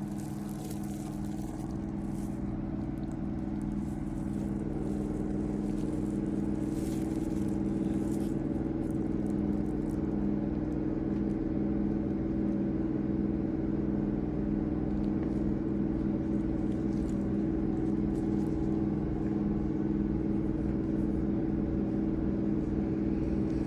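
Steady machine hum holding one fixed pitch throughout, growing slightly louder over the first few seconds.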